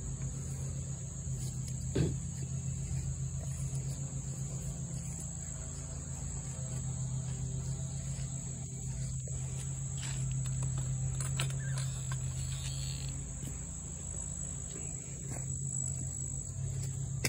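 Insects, such as crickets, trilling steadily at a high pitch over a steady low hum, with one brief knock about two seconds in.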